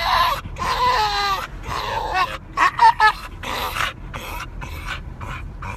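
Dog whining and yowling in short cries that bend up and down in pitch, a run of them in the first second and a half and another about three seconds in.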